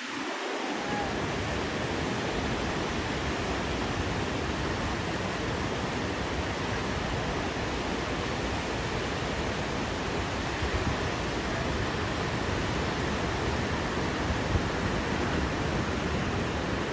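Steady rushing wash of small ocean surf breaking.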